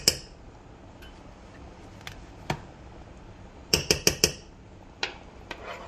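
A spoon clinking and knocking against a pan while butter is worked off it into tomato sauce: a single knock about two and a half seconds in, a quick run of four knocks around four seconds in, and two fainter ones near the end.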